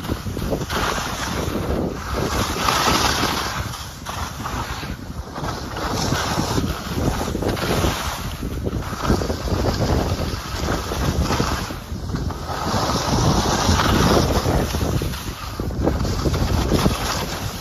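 Wind rushing over the microphone and skis scraping and hissing over chopped-up snow as the filming skier runs downhill, the noise swelling and easing every couple of seconds.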